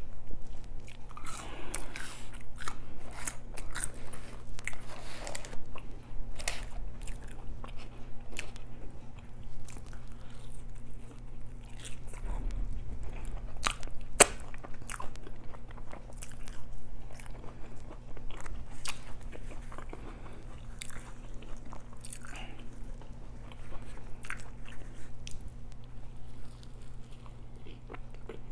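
Close-miked eating: a person biting into and chewing food, with irregular wet mouth clicks throughout.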